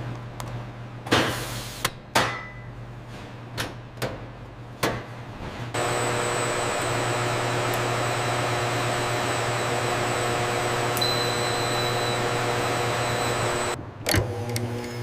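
Factory machinery: a few sharp knocks and clatters over a low hum, then from about six seconds in a steady machine hum with a whirring hiss, which cuts off abruptly near the end before another knock.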